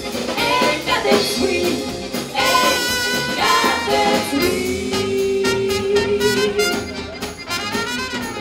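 Live swing-jazz band playing, with brass and female singers over a rhythm section; a long note is held in the middle.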